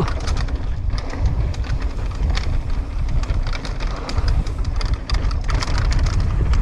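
Mountain bike running down a dirt trail: wind buffeting the camera microphone as a steady low rumble, over the tyres on the dirt and frequent clattering knocks from the bike.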